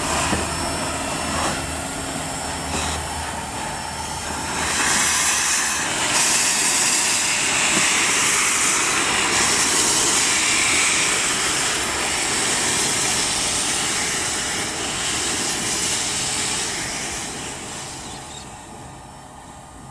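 Steam locomotive NM25 moving slowly, with loud steam hissing from its cylinders. The hiss swells a few seconds in and fades near the end as the engine moves away.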